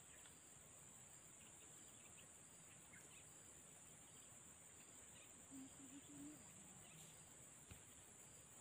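Near silence apart from a faint, steady, high-pitched insect drone with a soft regular pulse. A few short, faint low notes come about five and a half seconds in.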